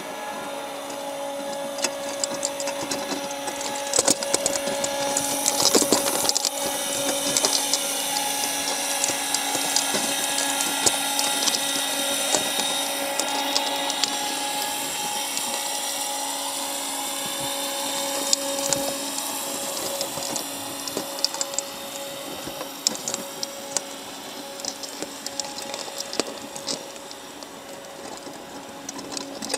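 Machinery running: a steady hum with a higher whine that slowly shifts in pitch, and irregular clicks and rattles throughout.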